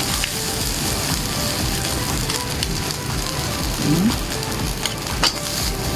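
Fried rice with egg sizzling in a frying pan, with a sharp click of the ladle against the pan about five seconds in.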